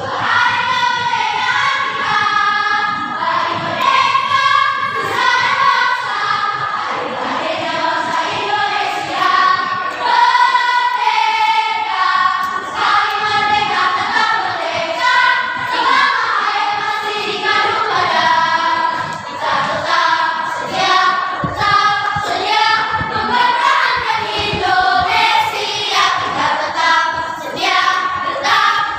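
A choir singing a song, with many voices together and the level holding steady throughout.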